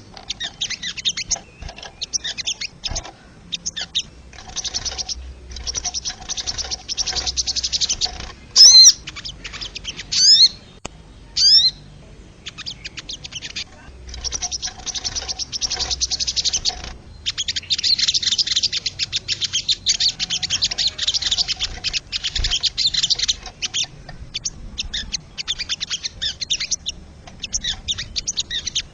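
Wild sogon (crested jay) calling: long bursts of fast, dry rattling chatter, with a few loud, clear whistled notes that slide in pitch about nine to twelve seconds in.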